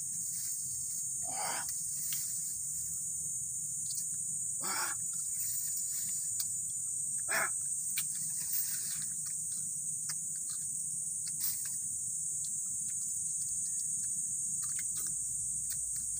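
Steady high-pitched insect chorus, with a few short noises about one, five and seven seconds in.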